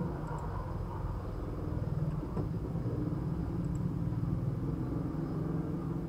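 Steady low background rumble with no speech.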